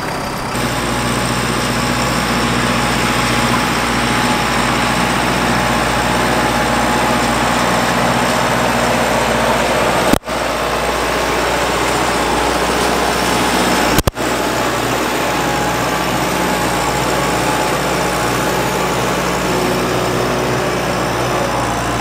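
Kubota compact tractor's diesel engine running steadily under the load of a grapple full of sawn boards, with two brief breaks in the sound about ten and fourteen seconds in.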